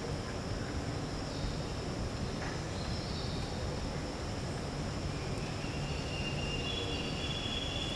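Insects droning steadily over a low, even rumble. About five seconds in a second high, steady whine joins and grows stronger near the end.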